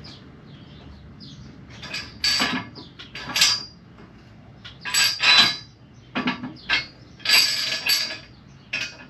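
Hand tools and metal parts clinking and clanking in irregular bursts, about seven over several seconds, loudest about five seconds in.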